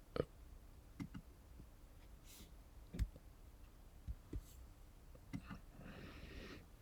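A few faint, scattered computer mouse clicks over low room tone, spread unevenly over several seconds.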